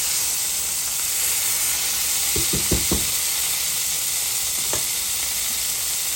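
Filet mignon steaks searing in a hot skillet: a steady sizzle, with a quick cluster of sharp pops about two and a half seconds in and a single pop near the end.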